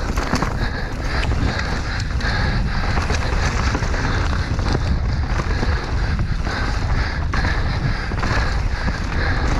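Enduro mountain bike riding a rough trail: a steady rush of wind on the microphone and tyres on dirt, with frequent short knocks and rattles from the bike over the terrain.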